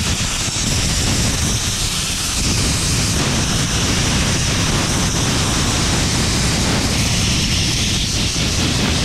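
Pressure washer spraying water: a steady, loud hiss of spray.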